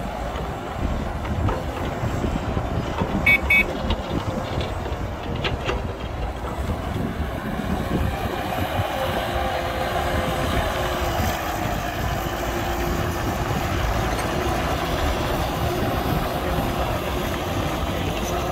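Diesel engines of a Cat hydraulic excavator and a loaded Hyundai dump truck running, with a few short metallic clanks about three seconds in. Later the dump truck's engine grows stronger as it pulls away under its load of soil.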